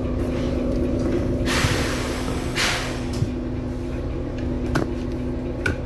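Bus engine idling with a steady hum, with two bursts of air hissing from the bus's pneumatics about a second and a half in, and a couple of sharp clicks near the end.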